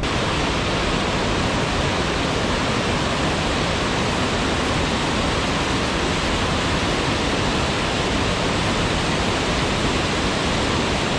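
Steady, even rushing of a small stream running over rocks.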